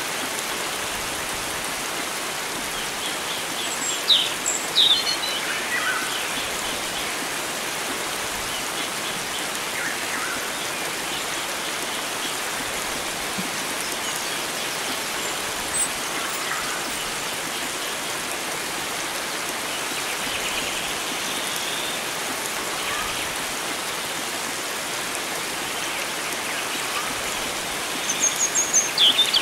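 Steady rush of flowing water, with wild birds chirping now and then: a few sharp calls about four to five seconds in and again near the end.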